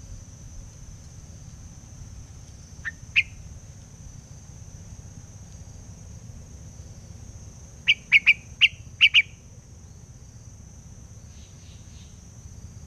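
Hoành hoạch trắng songbird calling in short, sharp notes: a pair about three seconds in, then a quick loud run of about six notes near the eight-second mark. A steady high insect drone runs underneath.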